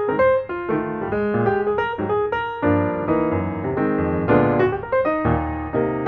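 Background piano music: a run of single notes and chords at a moderate, even pace.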